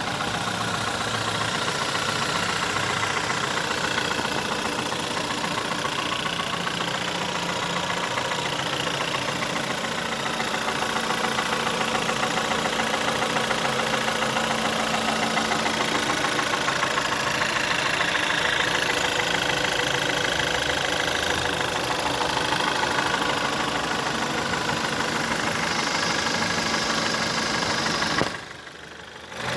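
VW 1.4 TSI (CAVD) four-cylinder petrol engine running at idle, with a loud, rapid knocking and clicking over the engine note. The sound briefly drops away about a second before the end.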